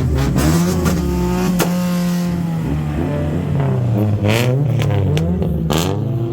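Car engine being revved again and again, its pitch rising and falling, with a couple of sharp exhaust pops in the second half.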